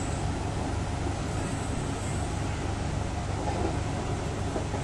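Steady rumble of passenger coaches' wheels running on rails as a train passes close alongside, heard from the open doorway of another coach.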